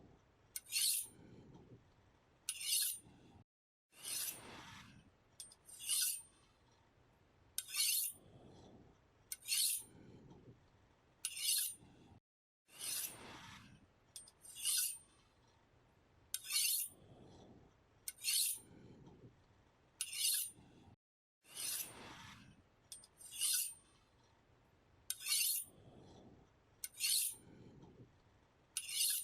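A knife being sharpened with steady, regular strokes. A short, bright, high scraping stroke comes about every two seconds, each followed by a quieter, lower rasp.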